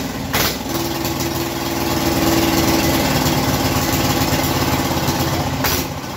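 Platinum 7.5 hp single-cylinder diesel engine running with a fast, even knocking beat, getting a little louder in the middle and easing off near the end.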